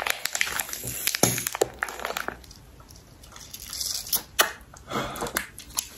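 Plastic squeeze-pouch of ice cream being handled and squeezed: a dense run of crinkles and clicks in the first couple of seconds, then scattered softer crinkles and squishing as the frozen contents are sucked from the pouch.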